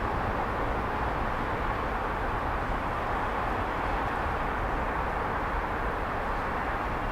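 Distant big-city traffic: a steady, even rumble and hiss of many vehicles blended together, with no single vehicle standing out.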